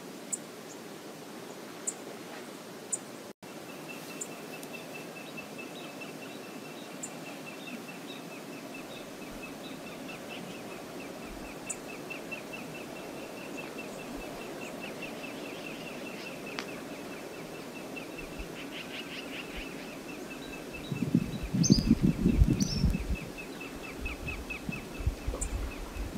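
Outdoor ambience at open water: a steady wash of water and wind noise, with a rapid high-pitched trilling call repeating evenly from a few seconds in. For about two seconds near the end, loud low buffeting that sounds like wind gusting on the microphone.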